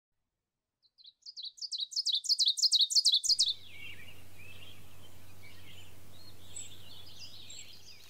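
A songbird singing a quick run of short, high, down-slurred notes that grow louder, starting out of silence and ending a little past three seconds in. After that, fainter birdsong carries on over a steady low hum.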